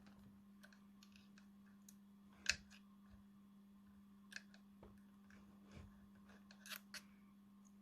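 Near silence with faint, scattered clicks of small parts and wires being handled. The clearest click comes about two and a half seconds in and a few more near the end, over a low steady hum.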